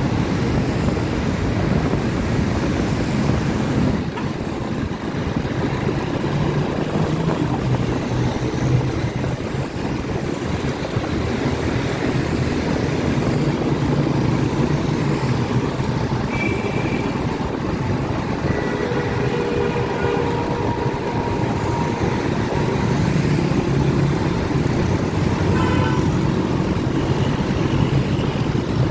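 Busy street traffic heard from a moving motorcycle: a steady mix of motorcycle and car engines and road noise. A few short horn toots come in the second half.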